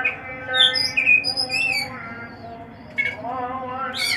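Black-naped oriole (kepodang) calling: a run of short, sharp whistled calls that slide up and down in pitch, several in quick succession, with a louder call near the end.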